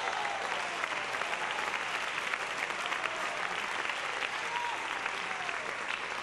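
A large audience applauding, many hands clapping together at a steady level, with a voice or two faintly heard over it.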